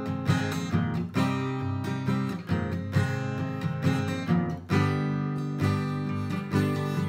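Acoustic guitar with a capo, strummed chords in a steady rhythm, changing chord a few times with no singing.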